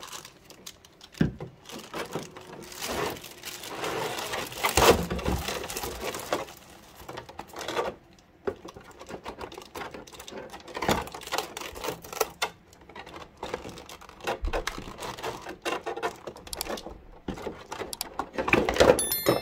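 Clear plastic packaging being handled: a thin plastic bag and blister tray crinkling and rustling in irregular bursts, with light clicks and taps as parts are pulled out.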